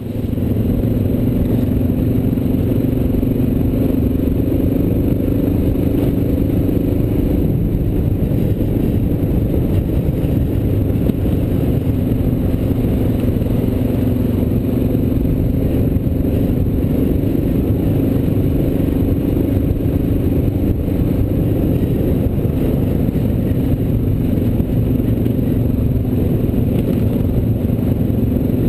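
Single-cylinder dual-sport motorcycle engine running at a steady speed while riding a gravel trail, heard from the handlebar-mounted camera with wind rush and rattling mixed in.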